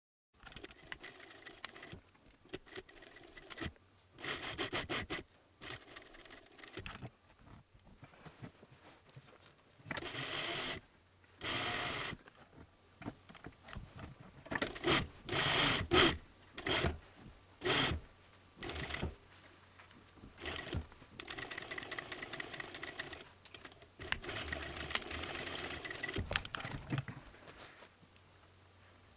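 Sewing machine stitching through layers of wool coat fabric in short runs of half a second to two seconds, stopping and starting again many times, over a faint low hum.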